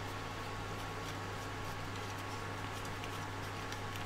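Small hand screwdriver turning a screw into a printed plastic part: faint, irregular ticks and scrapes over a steady low hum.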